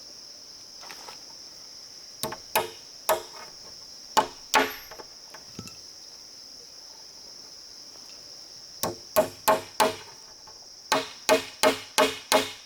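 Tool blows chopping into wood: a few scattered strikes, then a steady run of chops about three a second near the end. A constant high drone of insects runs underneath.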